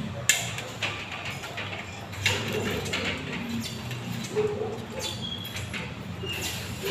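Pec deck fly machine being worked through repetitions: its arms and weight stack clank and knock several times, the loudest knock about two seconds in, with short squeaks and scraping from the moving parts between the knocks.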